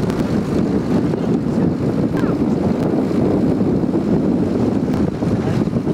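Wind buffeting the microphone over the steady rumble of an open vehicle driving along a rough road.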